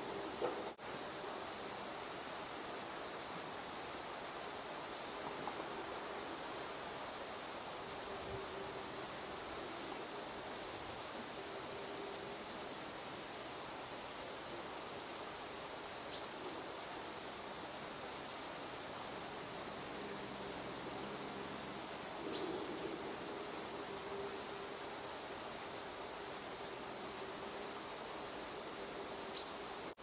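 Woodland ambience with small birds calling: many short, high-pitched chirps and down-slurred notes scattered throughout over a steady background hiss. A single sharp knock about a second in.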